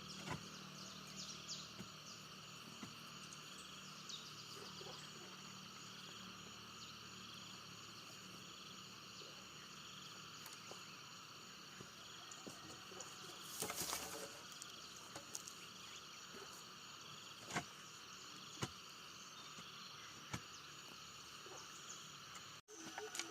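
Steady chorus of insects trilling and droning on several high pitches, one of them pulsing gently. A few light knocks and clicks break in, with a short rustling burst about halfway through.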